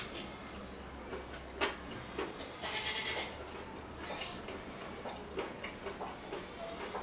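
Close-up chewing and mouth clicks while eating meat by hand, then a knife cutting meat on a wooden board, with scattered small knocks and ticks. A short, higher-pitched sound comes about three seconds in.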